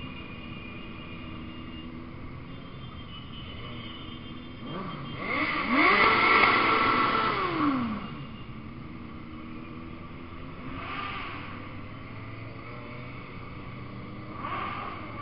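Motorcycle engines running in a group ride. About five seconds in, a nearby sport bike's engine revs up loudly, holds, then drops back, and there are smaller rises in engine pitch later on.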